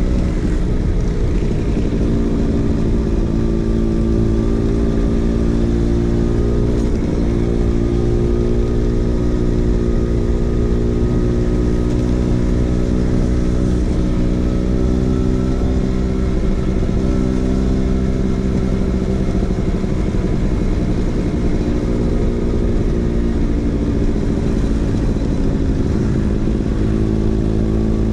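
Vespa PX 150's single-cylinder two-stroke engine running through a DRC Victory racing exhaust, holding a steady speed with small rises and falls in pitch.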